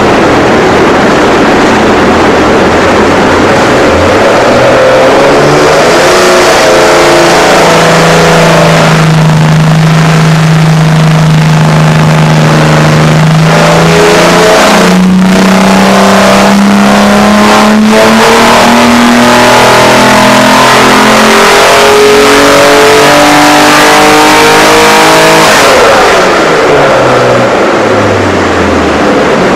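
Chrysler Hemi-6 265 inline-six engine, breathing through sidedraft carburettors, running loud on an engine dyno. It revs up from idle about four seconds in and holds steady. It then climbs gradually through the revs in a dyno pull before dropping back to idle near the end.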